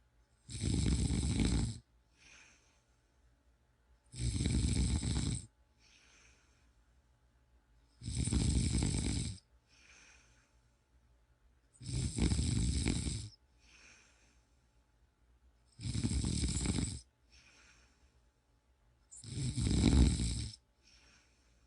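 Snoring: six loud snores, each a little over a second long and about four seconds apart, each followed by a fainter, shorter sound.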